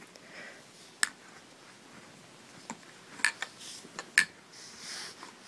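PVC pipes and plastic fittings clicking and knocking together as they are handled and pushed into place: a few sharp, irregular clicks, the loudest about a second in and a cluster around three to four seconds in.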